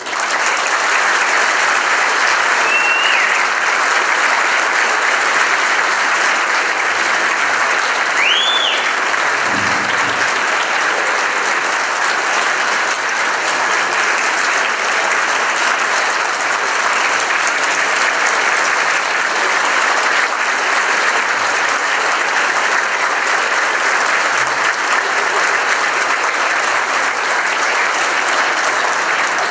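Large audience applauding steadily without a break. Two short high notes that rise and fall stand out above the clapping, about three and about eight seconds in.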